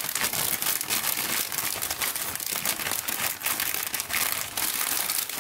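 Crinkling of a metallised plastic snack packet as fingers rummage among the ring snacks inside: a dense, unbroken run of rustles and small crackles.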